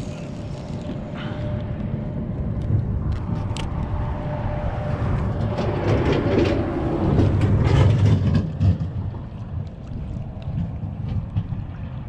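Wind rumbling on the microphone and water moving around a kayak, with scattered light ticks and clicks. It swells to its loudest about six to eight seconds in, and a faint steady hum fades out around the same point.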